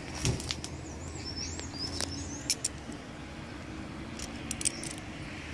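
A bird chirping in a short run of rising and falling high notes about a second in, with a few sharp clicks and light rustles of leaves and twigs brushed past, over a low steady hum of distant traffic.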